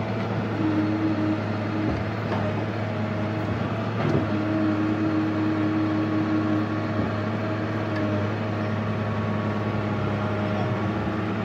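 Diesel engine of a JCB JS175 excavator running steadily under load as it digs, heard from inside the cab, with a higher whine that comes and goes as the boom and bucket work. A few light knocks sound over the engine.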